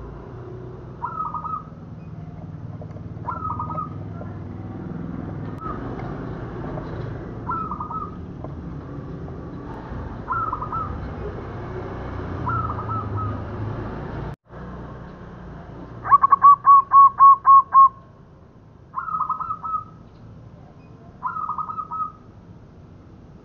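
Zebra dove (perkutut) cooing in short phrases about every two seconds. After a brief cut in the sound about halfway through, it gives a run of about seven loud quick notes, then goes back to the short phrases. A low rumble sits underneath, stronger in the first half.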